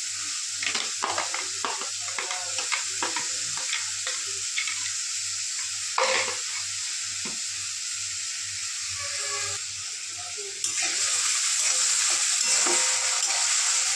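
Chopped onion, garlic and tomato frying in hot oil in a kadai, a steady sizzle, with a spatula knocking and scraping against the pan as it is stirred. The sizzle gets louder about three-quarters of the way through.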